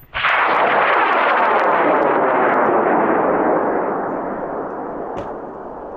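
High-power rocket motor firing at liftoff: a sudden loud crackling roar that holds for about three and a half seconds, then fades away.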